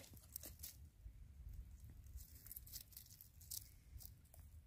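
Near silence: faint scattered crackles and rustles over a low, steady rumble.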